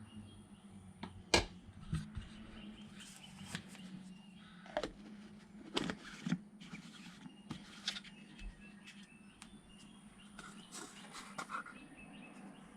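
Scattered knocks and clinks of containers and utensils being handled while a protein shake is made, over a steady low hum.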